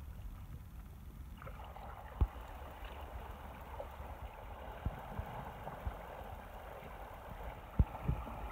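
Water gurgling and rushing around a sea kayak being paddled, over a steady low rumble. Several sharp knocks cut through, the loudest about two seconds in and near the end.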